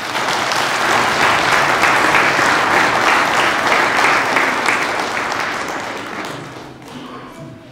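Audience applauding, swelling at the start, holding steady, then dying away over the last couple of seconds.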